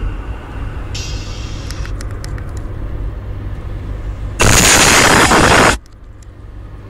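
Alpine car subwoofer pumping deep, steady bass notes from hip-hop music. In the second half a loud, harsh, distorted blast lasts about a second and a half.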